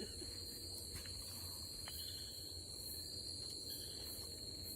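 Night-time insect chorus: a steady high-pitched drone, with a few faint ticks.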